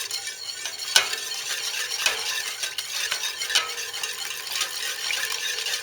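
Avgolemono soup being stirred in a pan after the egg and lemon mixture has been added. A steady scraping hiss runs under sharp knocks of the utensil against the pan, about one a second.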